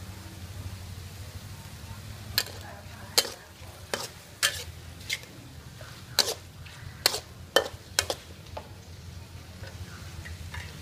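Metal spatula scraping and knocking against a steel wok as sliced cow offal and carrots are stir-fried, about ten sharp clinks in the middle of the stretch, over a faint frying sizzle.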